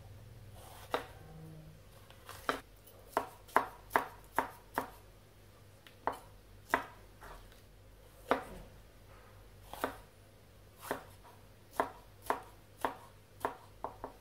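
Chef's knife chopping bell peppers on a wooden cutting board. The blade knocks sharply on the board at an uneven pace, sometimes several strokes in quick succession, then a pause.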